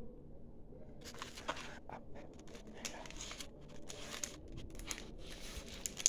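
Clear plastic sleeves and paper craft packets rustling and crinkling as they are handled, in irregular crackles that start about a second in.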